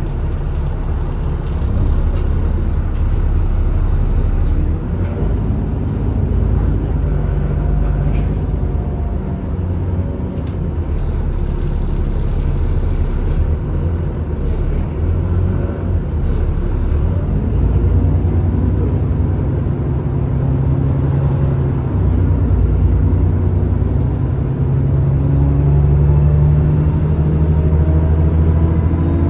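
Alexander Dennis Enviro400 (E40D) double-decker bus running, its engine a steady low rumble that grows stronger and rises in pitch in the second half as the bus pulls away. A thin high 'hoover' whine sounds in the first few seconds and again about halfway through.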